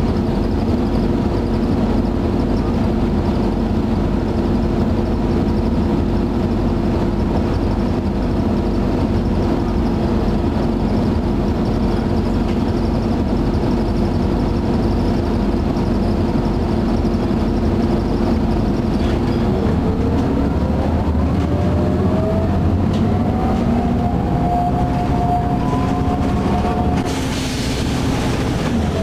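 Onboard sound of a 1996 Nova Bus RTS with a Detroit Diesel Series 50 engine and Allison VR-731 transmission, running steadily, then from about two-thirds of the way in its engine and transmission whine rise in pitch as the bus accelerates. A hiss comes in near the end.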